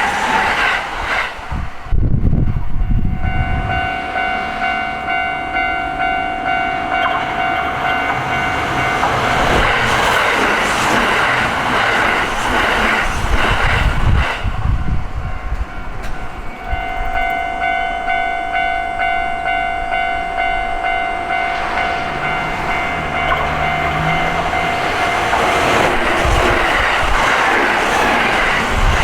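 Kintetsu Osaka Line train running through a level crossing, its wheels rumbling and clattering over the rails. Over it a steady ringing tone sounds for several seconds twice, broken in the middle of the passage.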